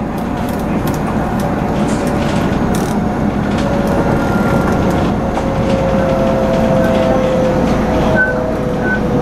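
Electric commuter train running, heard from inside the front car: a steady rumble of wheels on rail with scattered clicks, and a motor whine slowly falling in pitch as the train slows towards a station.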